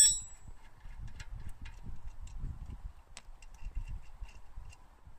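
A sharp, ringing metal clink at the start, then light scattered ticks and clicks of a brake caliper bolt being turned out by hand on a car's front brake.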